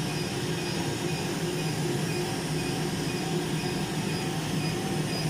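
Cynosure Elite laser hair-removal machine running during treatment: a steady hum with a rushing, air-like noise that holds at an even level.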